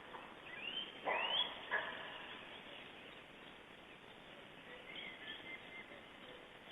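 Bird calls: two rising whistled calls in the first second and a half, a short call just after, then faint scattered calls over a steady outdoor hiss.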